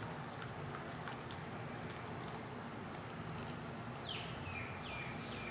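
Steady background hiss with a few faint ticks, and from about four seconds in a bird calling a quick series of short, falling chirps.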